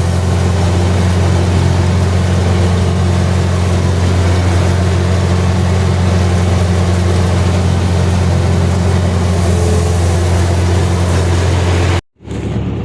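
Combine harvester running steadily while cutting beans, a loud even hum with deep steady tones. Near the end it cuts off abruptly into a brief silence, then a quieter machine noise follows.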